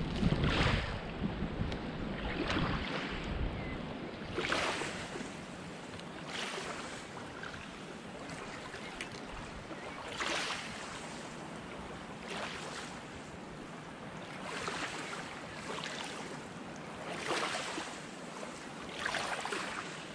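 Small waves lapping at the shore of the loch, a soft wash every couple of seconds. Wind buffets the microphone for the first few seconds.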